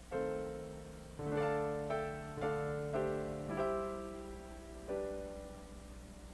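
Soft background music on a piano-like keyboard: a slow melody of single struck notes about half a second apart, with a last note about five seconds in that rings out and fades.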